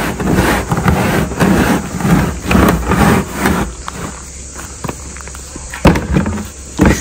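A black plastic barrel being forced down into a hole in dry soil: scraping, rustling and scuffing of plastic against earth and boots shuffling, busiest for the first few seconds, with a sharp knock about six seconds in and a heavier thump near the end as the man steps up onto the barrel.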